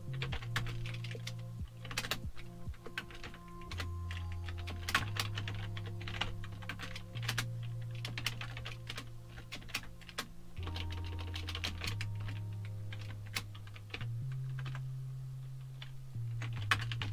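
Computer keyboard typing: quick, irregular keystroke clicks in short runs. Underneath is a low held tone that steps to a new pitch every few seconds.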